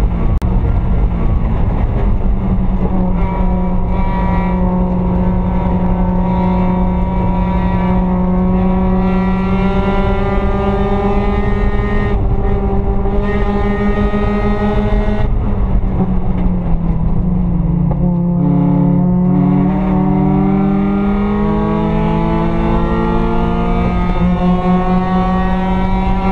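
Mazda Miata race car's four-cylinder engine heard loud from inside the stripped, caged cockpit, running hard at high revs. About fifteen seconds in the engine note drops as the car slows. After a step in pitch near eighteen seconds, it climbs steadily again.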